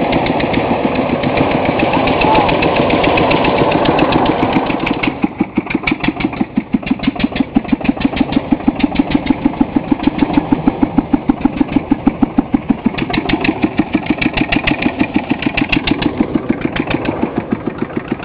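Small homemade tractor's engine running, steady and busy for the first five seconds, then dropping to a slow, even beat of separate exhaust pulses, about six a second.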